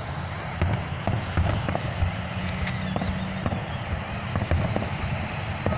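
Aerial fireworks shells bursting, many bangs and cracks in quick, irregular succession over a steady low hum.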